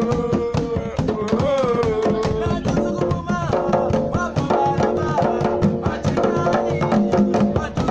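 Several hand-played djembes and a stick-beaten drum keeping up a fast, dense rhythm, with voices singing over the drumming, several together from about halfway through.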